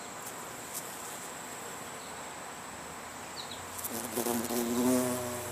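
Bumblebee beating its wings in a low, pitched buzz that starts about four seconds in and grows louder near the end, over a faint steady hiss.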